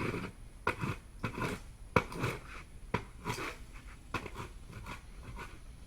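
A series of short, irregular scrapes and knocks, roughly one or two a second: hands handling and wiping at something.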